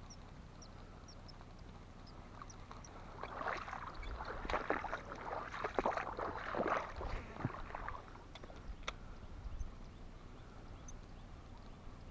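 Irregular water splashing and swishing in shallow flood water for a few seconds in the middle, with a faint background of small bird chirps at first and one click near the end.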